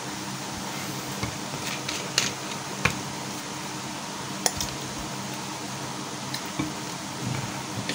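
Tissue rubbing and a few light clicks of hands working inside an inkjet printer's cartridge bay while the printer is switched off. A steady background hum runs underneath.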